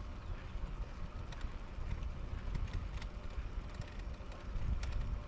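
Low rumble of wind buffeting the microphone and tyre noise from an e-bike rolling along a paved road, with a few faint ticks.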